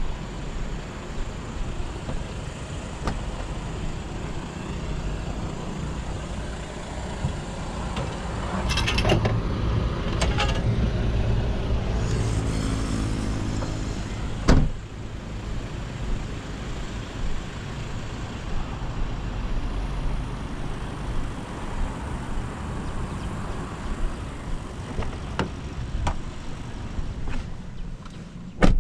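Road and tyre noise of a 2023 Ora Good Cat electric car on the move, a steady low rumble with no engine note, growing louder for several seconds midway. Scattered clicks and a sharp knock near the middle and another at the very end.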